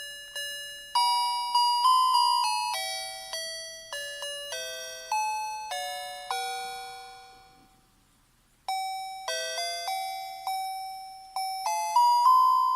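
Electronic chime-tone melody played one note at a time, each note struck and fading away. Just past the middle it fades to silence for about a second, then the tune starts again.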